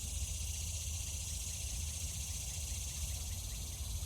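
Steady high-pitched insect chorus trilling, with a low rumble underneath.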